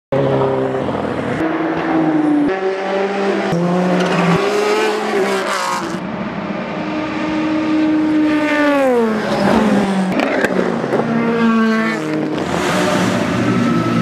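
Endurance race cars' engines at high revs, cut together from several cars, with the engine note stepping up and down through gear changes. About eight seconds in, one engine's note falls steeply as a car slows or passes.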